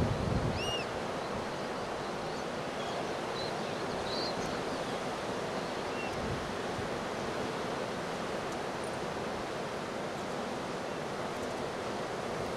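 Surf from Hurricane Beta's swell breaking on the beach, mixed with wind: a steady wash of noise. A short high chirp sounds about a second in, and a few fainter ones around four seconds.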